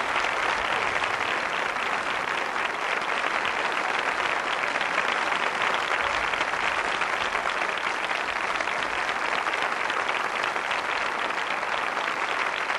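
Theatre audience applauding, a dense and steady clapping.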